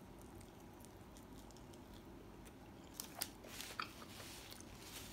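Biting and chewing a pesto bread pastry: quiet at first, then a handful of short crisp crunches from about three seconds in.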